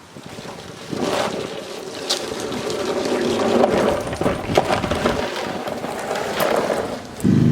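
Rustling and scraping noise with scattered clicks, then near the end a small petrol engine, the push mower's Honda GCV160, starts abruptly and runs steadily.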